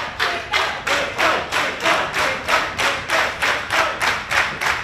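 Audience clapping in unison in a steady rhythm, about three to four claps a second, with faint music underneath.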